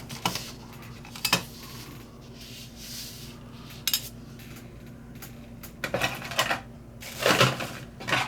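Small metal tools clinking and clattering as they are handled and set down on a work surface, in scattered clicks with a quick cluster in the last couple of seconds.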